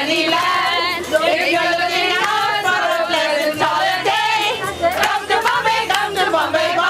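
A group of women singing together loudly, several voices overlapping in a wavering chorus, with sharp claps scattered through it.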